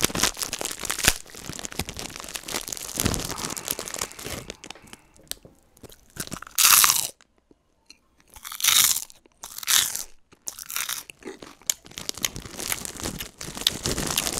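Close-up crunching of a snack at the microphone, with small crackles throughout and three louder crunches about a second apart around halfway through.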